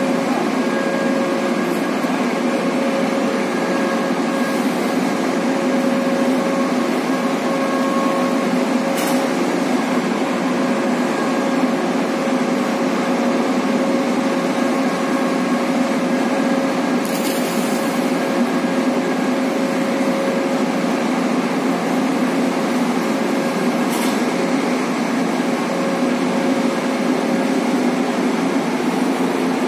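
Steady drone of heavy marine machinery with a constant hum, with three brief hisses along the way.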